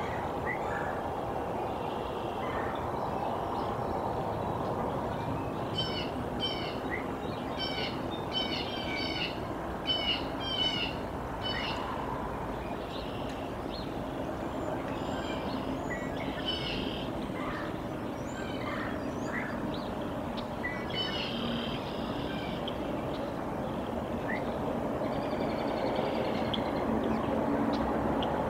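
Small songbirds chirping in short, quick, high calls, busiest from about six to twelve seconds in and again here and there later, over a steady low outdoor rush.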